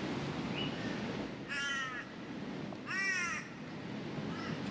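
A crow cawing: two loud, arched calls about a second and a half apart, then a fainter third near the end, over a steady low outdoor rumble.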